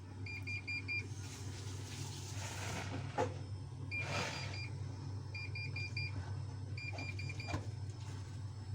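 Siemens washing machine beeping its error alert: repeated groups of about four short high beeps, with one longer beep a few seconds in, over a steady low hum. The alert signals error E18, a drain fault where the water is not pumped out in time.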